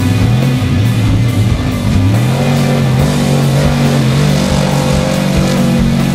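Rock music with electric guitar and drums playing a steady beat.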